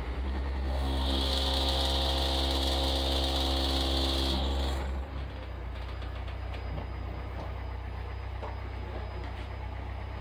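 Car subwoofers driven by a DB Sound DBST1600.1D class D amplifier play a loud, steady low bass tone for an SPL test, with a high buzz over it for the first few seconds. About five seconds in, the tone drops to a lower, steady level.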